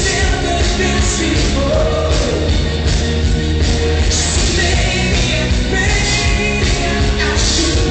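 Loud rock music with a singer over heavy, steady bass, with bright cymbal-like hits recurring through it.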